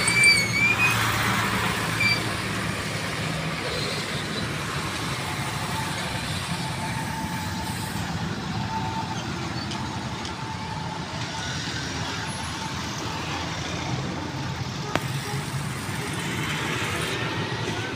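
Heavy diesel trucks, Nissan Diesel tractor units among them, running past on a road: a steady low engine drone over traffic noise. A brief high squeal at the very start is the loudest moment.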